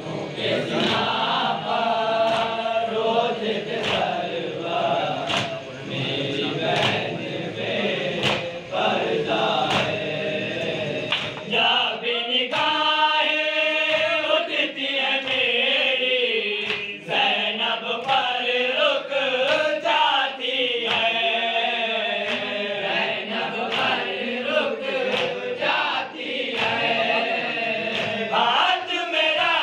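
A group of men chanting a Shia noha (lament) in unison around a lead voice. In the first half, sharp chest-beating slaps (matam) fall about every second and a half.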